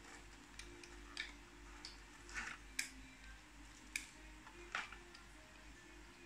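Irregular light clicks and taps of small plastic figure parts and a clear plastic blister tray being handled, the sharpest two about four and five seconds in.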